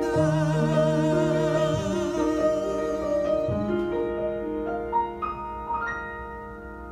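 Grand piano accompanying a man singing a long held note with vibrato, which fades after about three seconds. The piano then plays a few high notes near the end and leaves a chord ringing, closing out the ballad.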